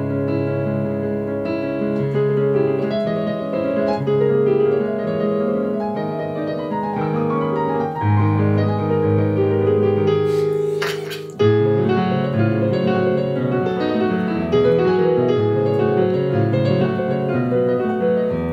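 Digital piano's acoustic-piano sound played through Edifier S1000W wireless bookshelf speakers: a flowing piano piece with a low bass line and melody over it. A short burst of hiss-like noise comes a little past the middle.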